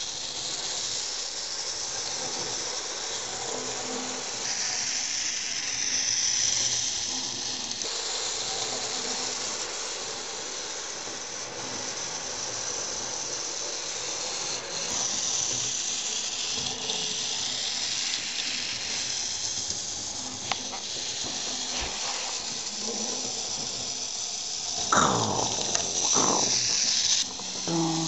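H0e narrow-gauge model locomotive running on its track, its small electric motor giving a steady high whine with the rattle of wheels on the rails. About 25 seconds in, a louder sound sweeps down and up in pitch twice.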